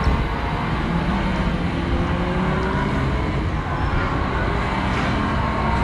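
Steady hubbub of a crowded exhibition hall: a dense wash of many distant voices and hall noise at an even level, with faint drawn-out tones running through it.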